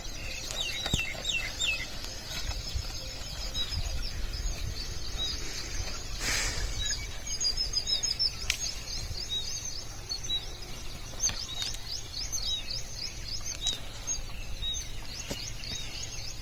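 Several small birds chirping and singing in quick repeated notes over a steady low outdoor rumble, with a brief rush of noise about six seconds in and a few sharp clicks.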